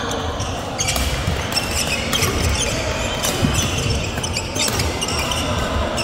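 Badminton hall during play: irregular sharp racket-on-shuttlecock hits and squeaks of court shoes on the sports floor, over steady background chatter in a large, echoing hall.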